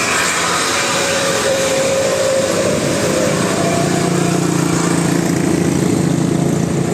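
A bus engine running loudly amid traffic noise, settling into a steady low hum from about halfway through.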